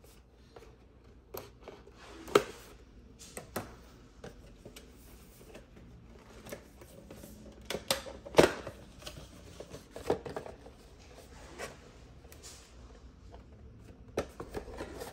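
Cardboard CPU retail box being cut open with a folding pocket knife and its flaps lifted: scattered sharp clicks and taps over soft cardboard scraping and rustling.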